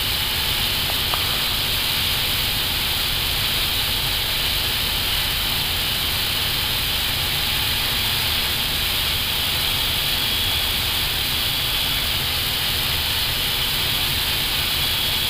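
Steady rushing hiss of airflow and air conditioning on an Airbus A320 flight deck in flight, unchanging throughout, with a low rumble beneath.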